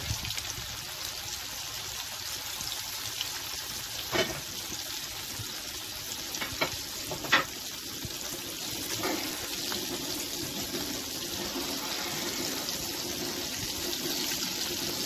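Sardines frying in hot oil in a frying pan, a steady sizzle of bubbling oil with a few sharp pops and clicks around four to nine seconds in. A low steady rumble comes in under the sizzle in the second half, which fits a train passing in the background.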